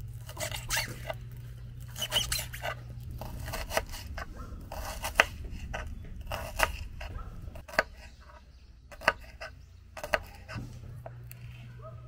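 Kitchen knife chopping green onion and onion on a wooden cutting board: irregular sharp taps of the blade striking the board, over a low steady hum.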